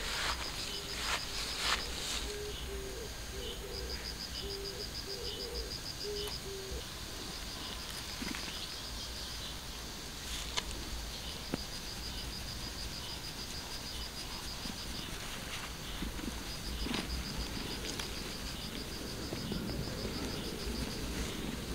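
Outdoor ambience: an insect trilling in repeated high, rapid bursts of a few seconds each, with low cooing bird notes in roughly the first seven seconds.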